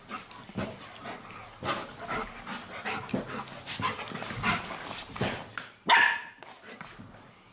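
A puppy and an older dog play-fighting, with repeated short yips and barks and one louder, higher bark about six seconds in.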